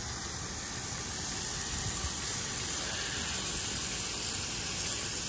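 Seasoned pork steaks sizzling as they brown in a cast-iron pot, a steady hiss.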